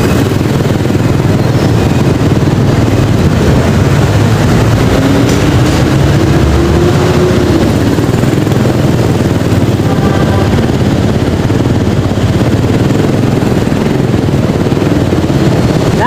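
Motorcycle riding in city traffic: a steady, loud low rumble of engine and road noise, with an engine note rising briefly about five seconds in.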